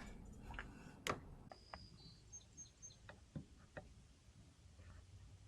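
Near silence, broken by a sharp click about a second in, a few faint ticks, and a couple of brief high-pitched chirps about two seconds in.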